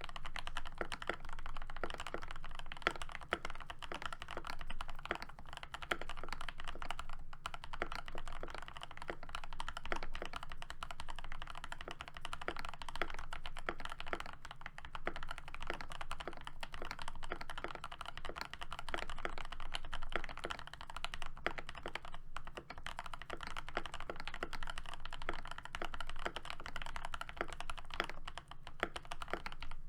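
Continuous fast typing on a Keychron V1 mechanical keyboard with hand-lubed and filmed Gateron Oil King switches, lubed stock stabilizers and PBT keycaps: a dense, steady stream of keystroke clicks.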